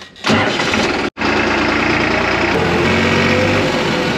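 Diesel engine of a blue New Holland tractor running steadily as it drives, heard close up from the driver's seat. It comes in suddenly just after the start, with a brief dropout about a second in.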